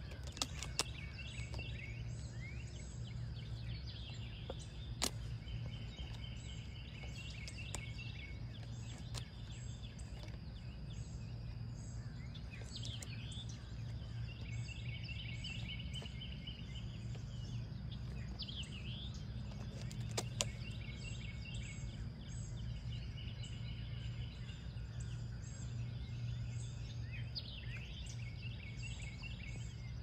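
An alligator's jaws cracking a turtle's shell: a few sharp, scattered cracks, loudest about a second in and again around twenty seconds in. Under them runs a steady low rumble, with birds singing in repeated trilled phrases.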